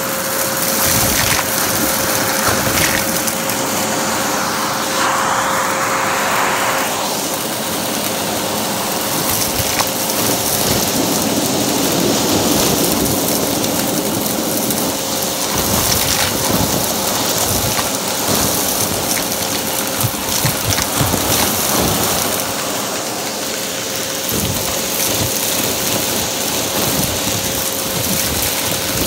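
Vacuum cleaner running with a steady whine, its bare hose end sucking up a pile of lint, coins and small hard debris from carpet, which rattle and crackle as they go up the hose.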